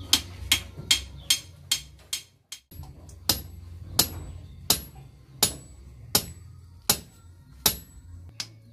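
A hammer strikes the top of a grounding rod for a lightning conductor, driving it into the ground. The blows are quick, about every 0.4 s, for the first two and a half seconds. After a short break they come slower and steadier, about every 0.7 s.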